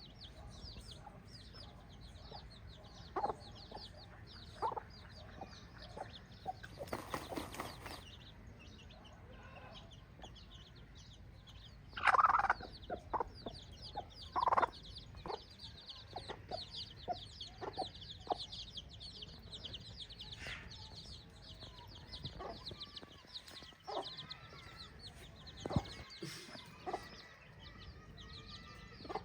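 Chickens clucking, with short scattered calls and one louder call about twelve seconds in, over a fast, high chirping that runs throughout.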